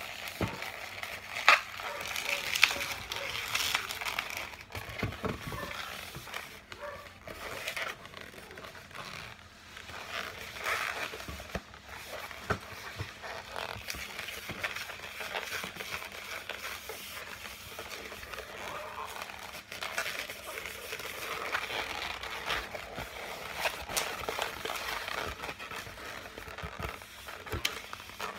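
Long latex modelling balloons being twisted and handled: the rubber rubbing and crinkling, with scattered sharp clicks, the loudest a second or two in.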